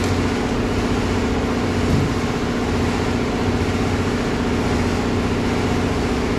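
Steady drone of a car engine idling.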